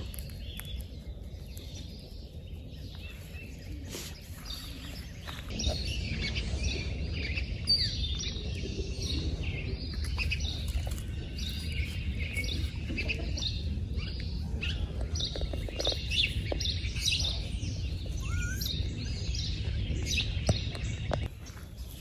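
Many quick, high-pitched bird chirps and calls over a steady low rumble. The chirping picks up about five seconds in and carries on busily.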